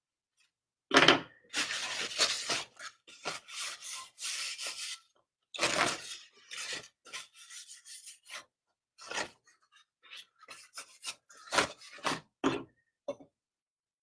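Scratchy rubbing strokes of paint being worked onto unglazed bisque pottery, in irregular bursts with short pauses and a few quick, sharper strokes near the end.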